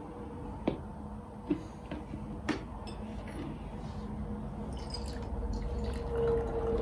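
Three light clicks from a French press as it is handled, then brewed tea pouring from the press into a glass cup, the filling sound growing louder near the end.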